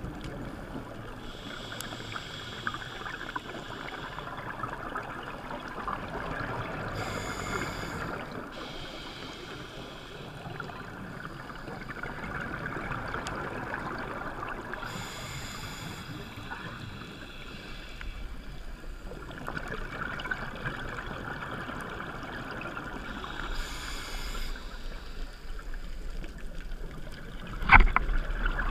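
Scuba diver breathing through a regulator underwater: three hissing inhales about eight seconds apart, with bubbling exhalations between them. A sharp knock near the end.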